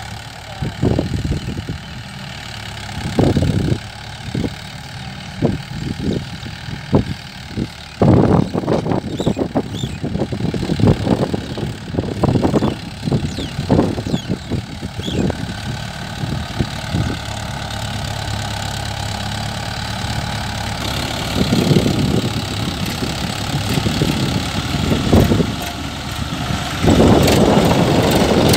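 Tractor diesel engine running steadily as it pulls a cultivator through a field, with irregular low thumps and gusts of wind buffeting the microphone. Near the end the engine sound grows louder and closer.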